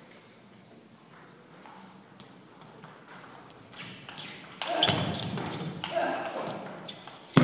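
Table tennis ball ticking off paddles and table in a rally, then loud shouting and cheering from a little past halfway.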